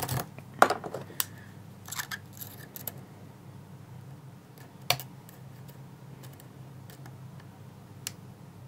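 A lock-picking rake scraping and clicking across the pins of a six-pin Trioving switch lock, raking to get it back into a false set. The clicks come thick and fast for about three seconds, then only a couple of single clicks follow.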